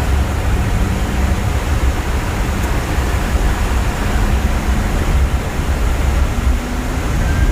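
Steady, loud airliner cabin noise in flight: an even rush of engine and airflow noise, strongest in the low end and unchanging throughout.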